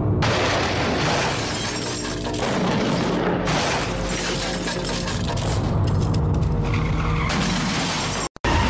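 A car rolling over and crashing down, with repeated impacts and shattering, mixed with music. The sound drops out for a moment near the end.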